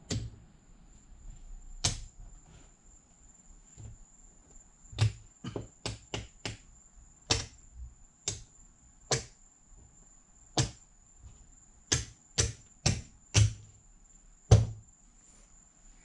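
Casino chips clacking together as they are picked up and stacked by hand: sharp, irregular clicks, some in quick runs of three or four. A faint steady high-pitched whine sits underneath.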